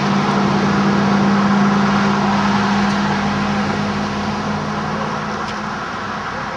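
A steady low mechanical hum over a broad rush of noise, slowly fading over the last seconds, with a faint click near the end.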